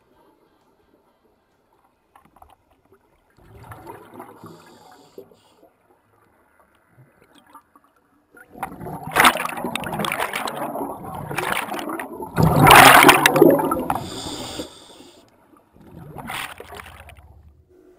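Scuba diver breathing through a regulator underwater: a short breath about four seconds in, then a long, loud rush of exhaled bubbles from about eight and a half to fourteen seconds, and another breath near the end.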